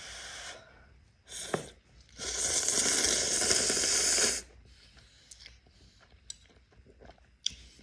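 Noisy mouth airflow from eating spicy instant noodles. A short burst at the start and another about a second and a half in are followed by a loud, even, airy rush lasting about two seconds, then faint small eating sounds.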